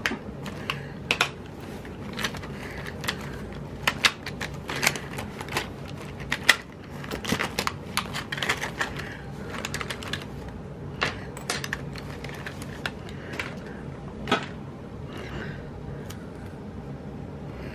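Paper and sticker sheets being handled on a desk: irregular light clicks, taps and rustles, over a low steady hum.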